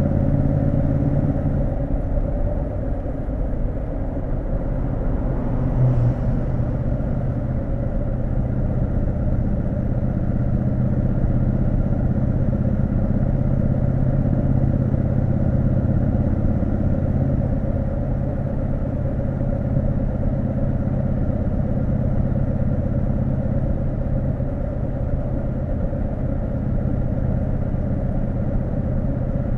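Triumph Street Scrambler 900's parallel-twin engine running steadily as the motorcycle rides along. It eases off about two seconds in, then pulls on at an even pace.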